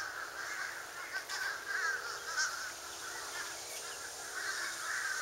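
A flock of crows cawing overhead, many calls overlapping without a break.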